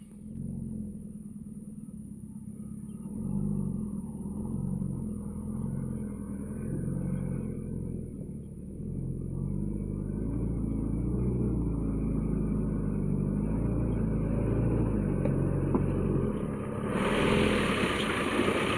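Old truck engine running, its pitch rising and falling as engine speed changes. Near the end a louder rushing noise joins in.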